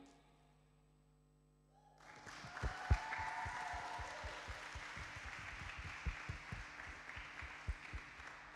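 A couple of seconds of near silence, then applause from about two seconds in, with single hand claps standing out from the patter.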